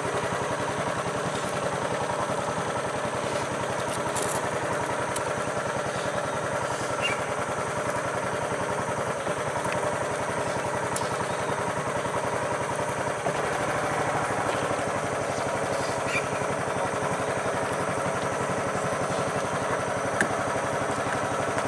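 A small engine idling steadily, with an even, unchanging running note.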